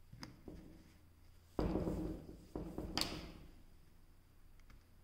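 A pencil and clear plastic ruler being handled on a textbook page: a few light taps, then two short scraping rubs about a second apart, the first the louder, as the ruler is set and a matching line is drawn.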